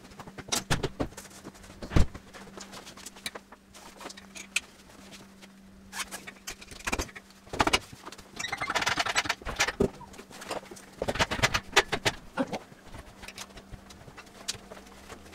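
Irregular clanks and knocks of metal as a straight-six engine and gearbox, slung from straps on an engine crane, are worked up out of a car's engine bay, with a longer rattle about nine seconds in. A steady low hum runs underneath.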